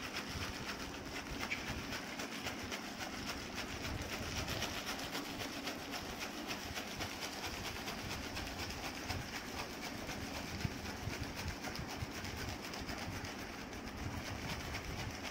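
A towel-wrapped plastic bag of ice cubes and salt being shaken fast and without pause. The ice rattles and the cloth rustles in a steady, rapid rhythm. This is the shaking stage that freezes a small bag of ice cream mixture packed inside.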